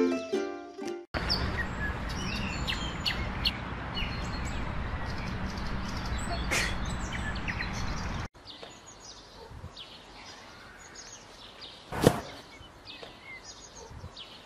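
Outdoor ambience with small birds chirping, after the ukulele music cuts off about a second in; the background drops quieter partway through. A single sharp knock stands out about two-thirds of the way through.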